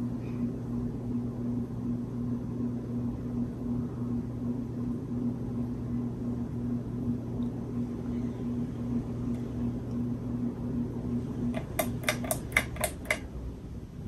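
Hampton Bay Wellston 44-inch ceiling fan running with a steady motor hum. Near the end comes a quick run of about seven sharp clicks, and the higher tone of the hum stops.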